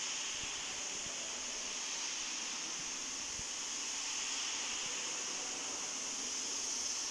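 Steady hiss of room tone, even and unchanging, with a few faint soft low thumps.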